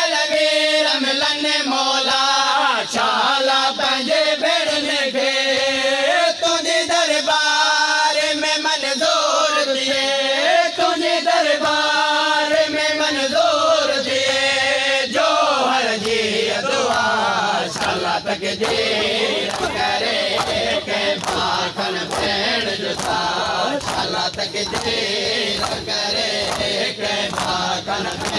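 Men chanting a Punjabi/Saraiki noha chorus in unison in repeated phrases. About halfway through, the chanting breaks off into crowd noise and a quick, steady run of sharp slaps as mourners beat their chests (matam).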